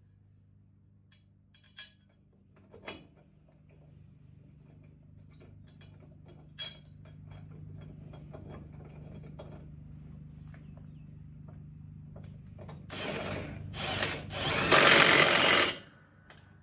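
Cordless impact wrench run in three short bursts near the end, the last and longest the loudest, tightening the bolt that holds a zero-turn mower blade on its spindle. Before it come a few light metal knocks over a low steady hum.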